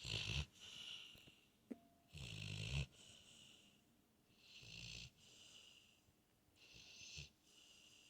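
Pit bull snoring in its sleep: a short, low rattling snore about every two and a half seconds, four in all, each one paired with a hissing breath.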